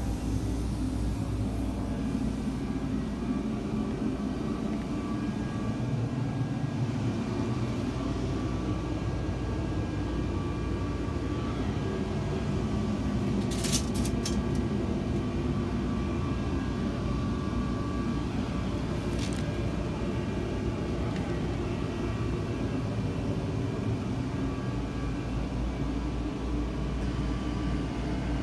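Steady drone of running machinery, low and even, with a few thin steady tones over it. There are a couple of sharp clicks about halfway through and another a few seconds later.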